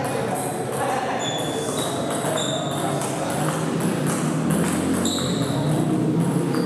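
Table tennis rally: a celluloid ping-pong ball clicking back and forth off the bats and the table in a quick run of knocks, with several short high squeaks of sports shoes on the tiled floor.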